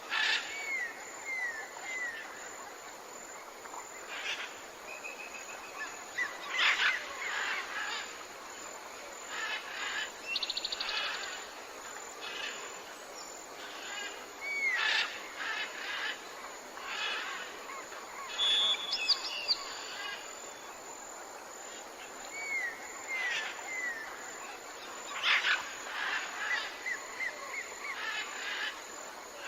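Jungle ambience: several kinds of birds calling over a steady background hiss. The calls include little runs of three short falling whistles and fast rattling trills.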